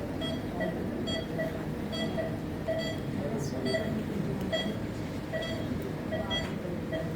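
Operating-theatre patient monitor beeping with each pulse, short pitched beeps at roughly two a second, with low murmuring in the room behind.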